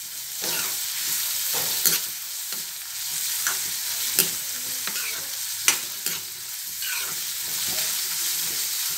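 Sliced onions and green chillies sizzling in a little oil in a kadai while a metal ladle stirs them, clinking and scraping against the pan every second or so. The onions are in their first light fry, just softening.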